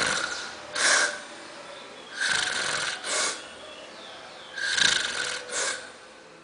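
A heavyset man snoring in his sleep: about six loud, irregular snores with quieter breaths between, fading near the end. The snorer has sleep apnea.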